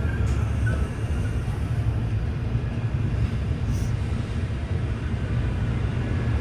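Indian Railways passenger train running, a steady low rumble.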